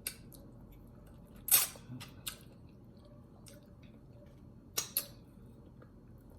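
Close-miked eating sounds: a few sharp mouth smacks and bites between quiet chewing, the loudest about one and a half seconds in and a quick pair near the end.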